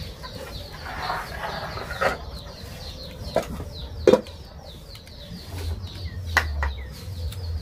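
Steel utensils clinking and knocking about five times as pots, bowls and a steel lid are handled, the loudest clank about four seconds in. Small birds chirp over and over throughout, with chickens in the background.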